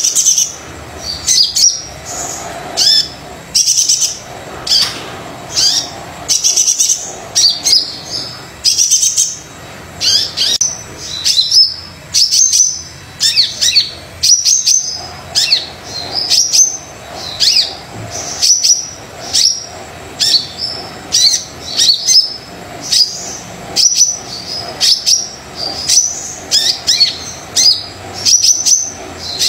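Brown-throated sunbird singing busily: short bursts of high, sharp chirps and twitters with quick up-and-down sweeps, repeated about once a second.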